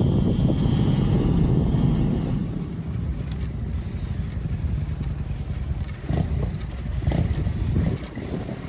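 Wind buffeting the microphone of a camera on a moving bicycle, a low rumbling noise that eases about two and a half seconds in.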